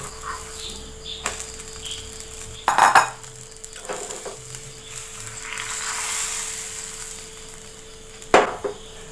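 Frying pan on a stove with coconut oil heating for beaten eggs: utensils clink and clatter against the pan, loudest about three seconds in, and a rising sizzle swells and fades past the middle.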